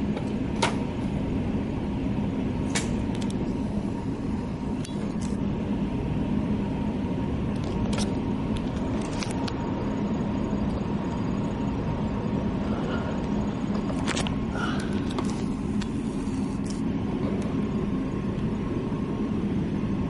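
A steady low rumble with a faint hum, like a motor vehicle running, with a few faint sharp clicks scattered through it.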